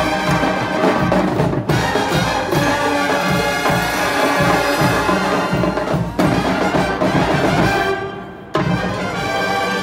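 A school marching band plays a brass tune over a pulsing drum beat. Twice the whole band stops together for an instant, and near the end it falls away briefly before coming back in full.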